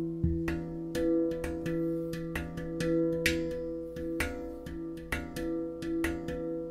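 Pantheon Steel Halo handpan being played, a quick run of struck notes that ring on over one another.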